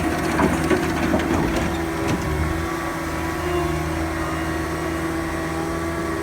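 Caterpillar 257B compact track loader's diesel engine running steadily, with a few knocks in the first two seconds.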